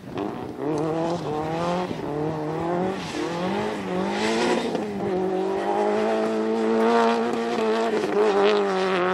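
Rally car engine revving hard on a dirt stage. Its pitch climbs and drops a few times with gear changes and throttle, then holds high and steady for several seconds as the car slides through the corner.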